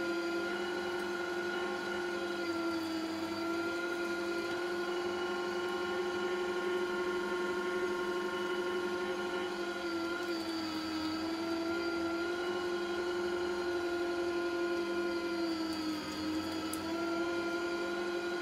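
Electric meat grinder running steadily, mincing meat through its coarse plate. Its hum sags briefly in pitch about ten seconds in and again near the end as the motor takes a load.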